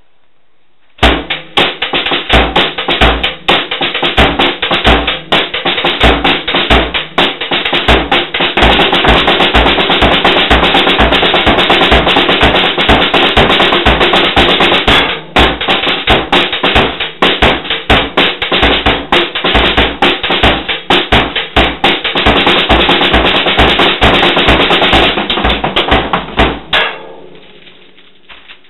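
Drum kit played loudly in a beat, with regular deep kick-drum strokes under dense hits. It starts about a second in, breaks briefly midway, and rings away near the end.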